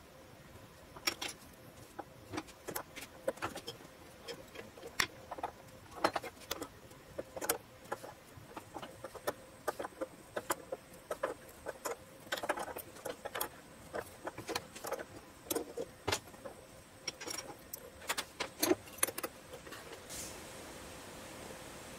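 Irregular metallic clicks and clinks of hand tools working a steel fitting held in a metal lathe's chuck, a wrench turning a thread tap in it. A steady hiss comes in near the end.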